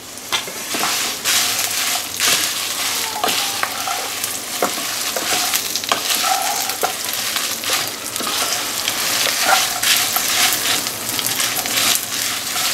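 Byadgi dry red chillies being stirred and roasted with a wooden spatula in a hot non-stick pan: a steady rustling hiss with frequent light clicks and scrapes of spatula and chillies.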